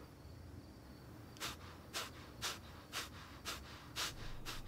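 A man's short, quick breaths through the nose, about two a second, faint.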